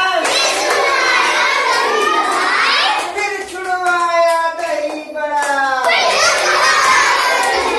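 A group of children chanting a rhyme together, with hand claps. The voices hold long notes and swoop upward in pitch twice, about two and a half seconds in and again near the end.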